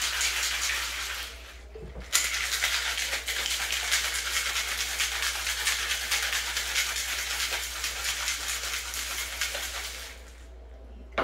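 Stainless steel cocktail shaker shaken hard, ice rattling inside in a fast, even rhythm. There is a short break about a second and a half in, and the shaking stops shortly before the end.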